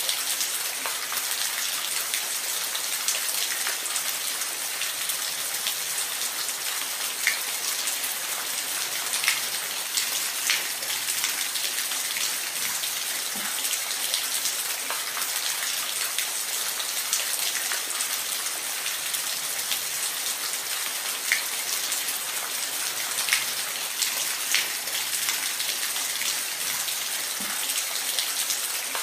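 Waterfall: a steady hiss of falling water, with scattered sharper splashes and drips.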